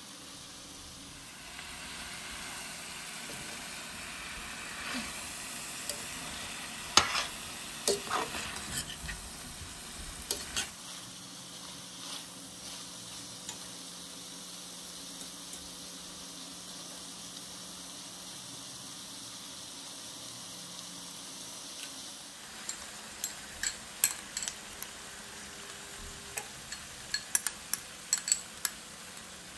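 Chicken strips and vegetables sizzling steadily in a stainless steel pot while a metal spoon stirs them, clinking and scraping against the pan in short flurries, once about a third of the way in and again over the last few seconds.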